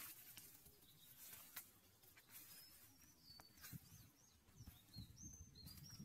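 Faint outdoor ambience: small birds chirping a run of short, high, curving notes in the second half, with a few scattered crackles of dry leaves as a monkey walks over them.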